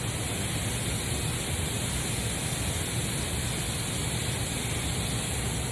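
Steady rushing background noise, like a hiss, even and unbroken, with no distinct knocks or clinks standing out.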